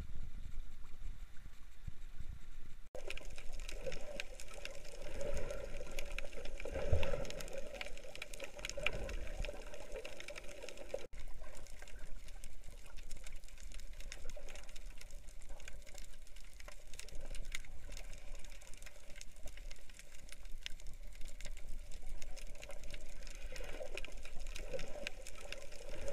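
Water moving around a camera at the surface. After about three seconds comes muffled underwater sound from a camera held below the surface: a steady rush of moving water with a constant crackle of fine clicks, swelling loudest around seven seconds in.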